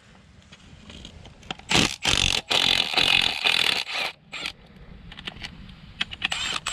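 Cordless brushless power tool with a socket extension running on a bolt inside a gearbox bellhousing: a few short bursts, then a longer run of about one and a half seconds, with small metallic clicks and a last short burst near the end.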